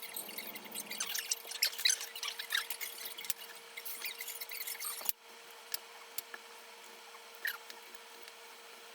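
Rapid small clicks and squeaks of something being handled close to the microphone, thinning to a few scattered clicks about five seconds in, over a faint steady hum.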